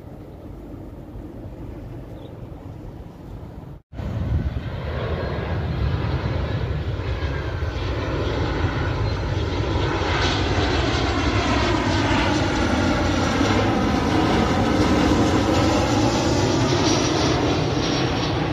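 Boeing 737-800 jet airliner on final approach passing low overhead, its turbofan engines droning and growing steadily louder, with tones that sweep in pitch as it comes over. Before that, a few seconds of faint distant jet noise from another landing 737, cut off abruptly about four seconds in.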